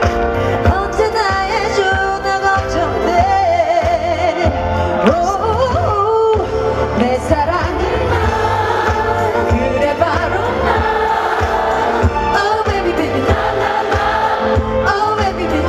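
A female pop singer sings live into a handheld microphone, amplified over a band accompaniment with a steady beat.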